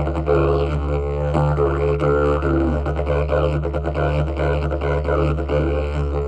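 Long didgeridoo played as a continuous low drone, with the overtones above it shifting in a rhythmic pattern.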